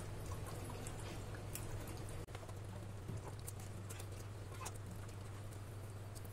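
A hand squishing and kneading thick, wet masala marinade into a whole raw chicken in a steel bowl: soft irregular squelches and light taps. Under it runs a steady low hum.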